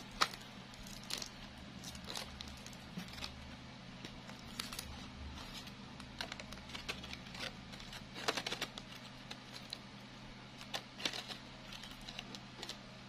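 Crinkling and rustling of stiff handmade artificial leaves and stems as they are handled and arranged, in scattered short crackles over a steady low hum.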